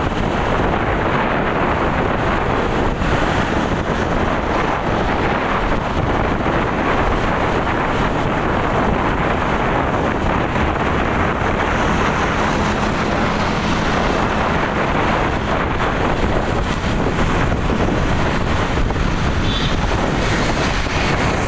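Steady rush of wind buffeting the microphone, mixed with the road noise of travelling along a busy road.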